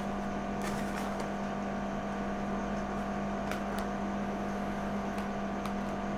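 A steady electrical or machine hum, even in level, with a few faint light clicks and taps scattered through it.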